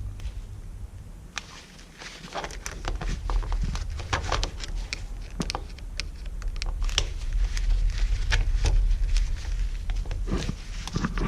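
Irregular clicks and knocks of hands and tools working on engine parts, over a steady low rumble.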